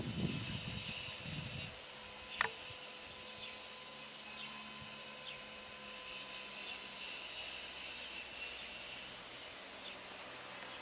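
Insects chirping steadily, a high continuous chirring with faint repeated chirps. A low rumble sounds in about the first second and a half, and a single sharp click comes about two and a half seconds in.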